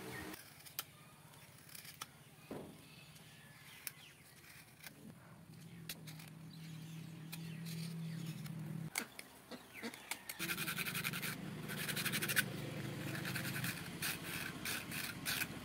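Knife scraping and shaving a small piece of bamboo by hand: scattered light clicks and taps, then a few seconds of rapid, evenly repeated scraping strokes about two-thirds of the way in.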